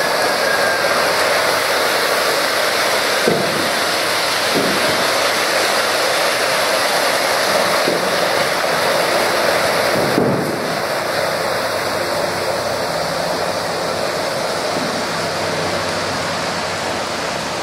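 Model trains running on the layout's track: a steady rushing whirr and rumble of wheels and motors, with a few faint clicks. The level drops a little about ten seconds in.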